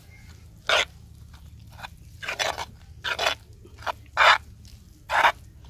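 Metal spoon stirring gram flour, spices and a little water in a terracotta bowl, scraping against the clay as it works the dry flour into a thick batter: about five separate scraping strokes at uneven spacing, roughly one a second.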